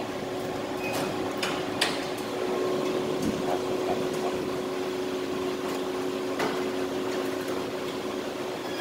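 Steady mechanical hum with a couple of low tones, broken by a few sharp light clicks.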